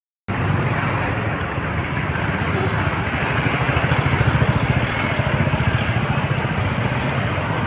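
Street traffic noise with a motor vehicle engine running steadily close by. It starts abruptly just after a brief dropout.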